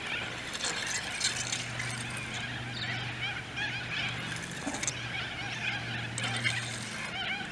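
Birds chirping and calling over one another in a busy chorus of short chirps, with a steady low hum underneath.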